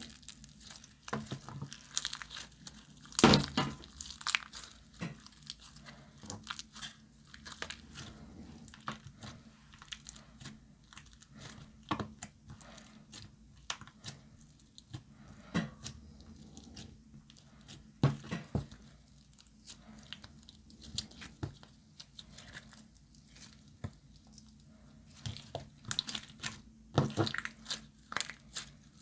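Hands kneading and stretching glossy slime mixed with glitter and makeup, giving irregular sticky clicks and pops. The loudest comes about three seconds in, with a cluster near the end.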